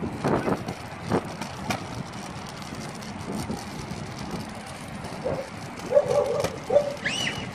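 A child's plastic tricycle rolling on a concrete sidewalk, its hard wheels making a steady rumble with a few sharp knocks in the first two seconds. Several short high-pitched calls come near the end.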